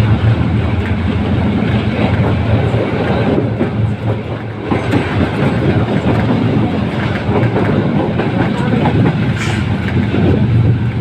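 Passenger train running at speed, heard from an open window of one of its coaches: a steady loud rumble with a fast, irregular clatter of the wheels on the track.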